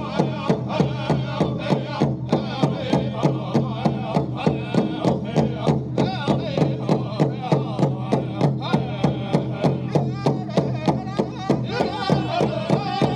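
Powwow drum group playing a dance song: a big drum struck in a fast, even beat, about three to four strokes a second, with a chorus of singers' voices over it.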